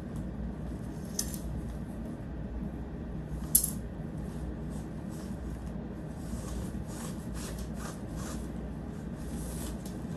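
Tent fabric rustling and crinkling as it is handled, busier in the second half, with one sharp click about three and a half seconds in. A low steady hum runs underneath.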